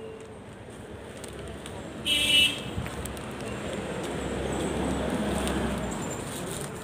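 Street traffic: a short car horn beep about two seconds in, then a car passing close, its noise swelling and fading away.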